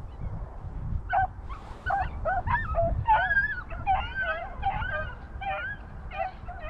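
A pack of rabbit dogs giving tongue on a freshly jumped rabbit's trail: many short, overlapping yelping calls starting about a second in, over a low rumble.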